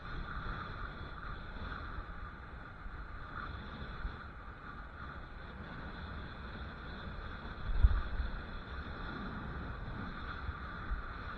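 Wind rumbling on the microphone of a camera moving along a road, over a steady whirring hum. A single loud thump about eight seconds in.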